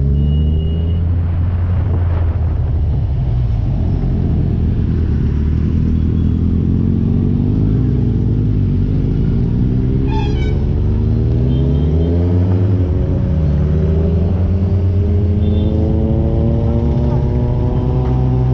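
Sport motorcycle engine heard from the rider's seat under way, its revs rising and falling, dropping at a shift about twelve seconds in and then climbing steadily for the last several seconds, over a steady low rumble.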